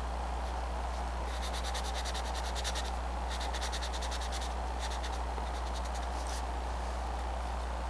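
Orange colored pencil scratching on paper in rapid back-and-forth shading strokes, coming in several bursts of about a second each. A steady low electrical hum runs underneath.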